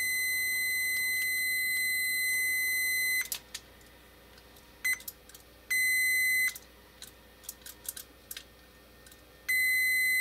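A digital multimeter's continuity beeper sounding a steady high beep for about three seconds, then a brief blip and two shorter beeps of under a second each. Each beep means the relay's contacts across one leg have closed as its plunger is pulled by hand. Faint clicks between the beeps.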